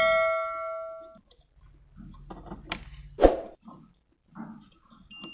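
A bell-like ding from the subscribe-button animation's sound effect rings and fades over about the first second. A couple of sharp knocks follow, then near the end the multimeter's continuity beeper gives short, high beeps as the probes touch the IC pins.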